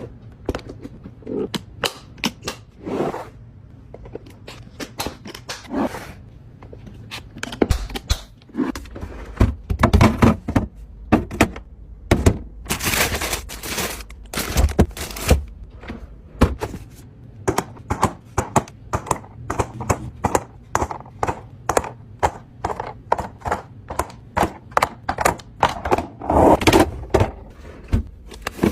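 Containers and food items being handled and set down in a refrigerator: a dense run of clicks, knocks and thunks, with a few longer rustling or scraping sounds about halfway through and again near the end.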